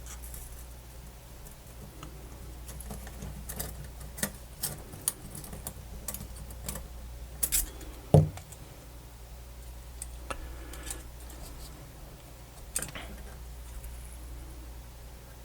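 Scattered small clicks and taps of the small parts of a Sony MZ-NH700 MiniDisc Walkman being handled and fitted back together, with one louder thump about eight seconds in, over a steady low hum.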